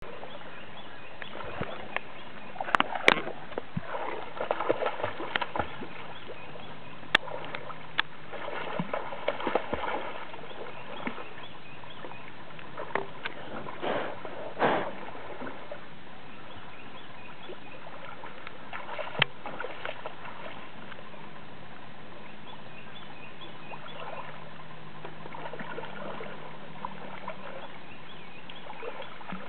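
A Weimaraner swimming in lake water, paddling and splashing as it goes after a fishing float. The splashes come in irregular clusters, thickest in the first half and sparse after about twenty seconds, over a steady hiss.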